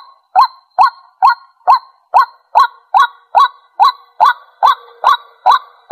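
White-breasted waterhen calling: one short, loud kwak note repeated in a steady rhythm, about two and a half calls a second.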